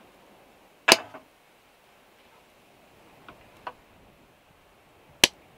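A few sharp clicks and knocks over a faint steady background: a loud knock about a second in, two faint ticks a little after three seconds, and another sharp click near the end.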